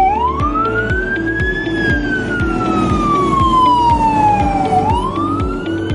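Siren wailing: its pitch rises over about two seconds, falls slowly, then rises again near the end. It plays over background music with a steady beat.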